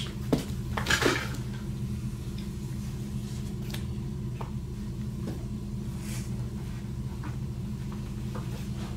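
Kamishibai picture card slid out of a wooden butai frame: two brief swishes, the second about a second in, then a few faint taps as the card is handled. A steady low hum runs underneath.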